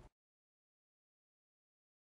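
Silence: the soundtrack goes completely dead just after the start, a faint trace of room tone cutting off to digital silence.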